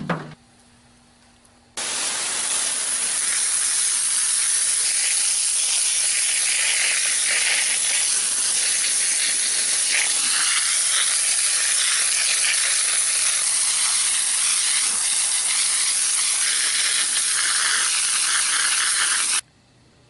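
Hose jet of water spraying onto a soil-covered cast-aluminium anthill: a loud, steady hiss that starts abruptly about two seconds in and cuts off just before the end. A brief knock right at the start.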